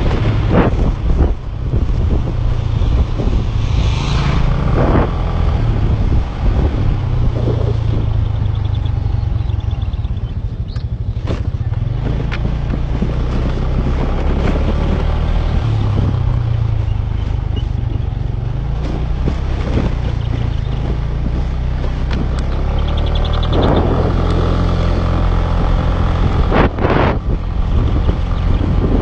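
Motorcycle engine running steadily under way, its pitch shifting a little with the throttle, over wind noise on the microphone. A few sharp knocks come through along the way.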